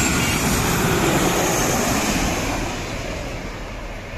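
Jet engines of a Boeing 737 airliner passing low overhead on final approach with its landing gear down: a loud, steady rushing noise that eases off over the last second or two as the plane goes by.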